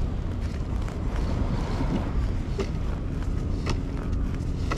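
Wind buffeting the microphone, a steady low rumble, with two faint clicks in the middle of it.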